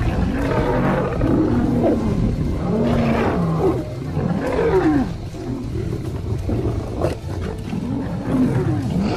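Male lions fighting: a loud, unbroken run of growls and snarls, many of them sliding down in pitch.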